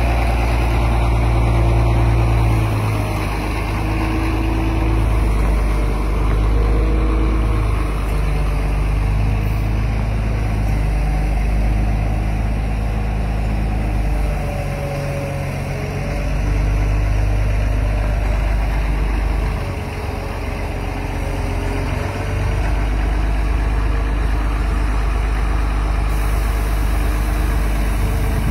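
Caterpillar 14G motor grader's diesel engine running steadily, with the level dipping briefly a few times, at about 3, 15 and 20 seconds in.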